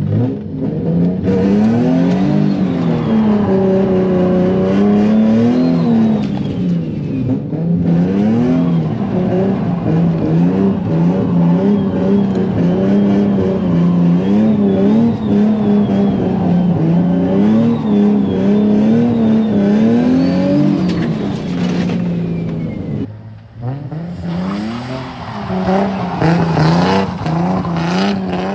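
Nissan 350Z's 3.5-litre V6 with a loud exhaust, revving up and falling back again and again as the car is slid around, heard from inside the cabin. About 23 seconds in the sound cuts to the car heard from outside, still revving hard.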